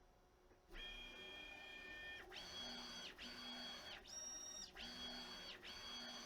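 3D printer's stepper motors, on TMC2209 drivers, singing during a high-speed test print: a run of steady high-pitched notes that jumps to a new pitch with a short break at each change of direction, about every second. It starts a little under a second in.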